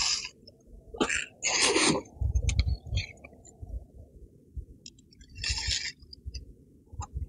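Granular bonsai soil poured into a pot in short hissing bursts, twice in the first two seconds and again near six seconds, with dull knocks from the pot and tools being handled.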